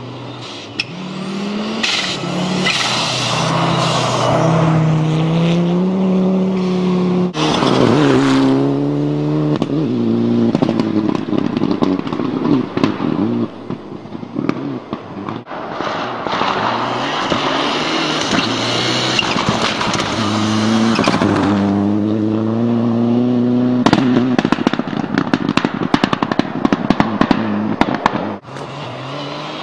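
Rally car engine revving hard, its pitch climbing and falling as the car accelerates and drifts, over a loud hiss of tyres on snow, with scattered sharp ticks. The sound breaks off abruptly a few times, as between separate runs.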